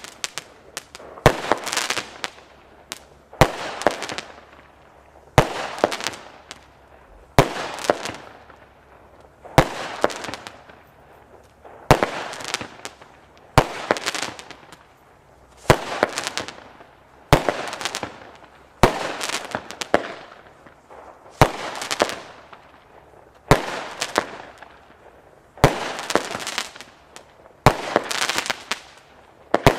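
Firework going off in a steady sequence, a sharp bang about every two seconds, each followed by crackling that fades within a second or so.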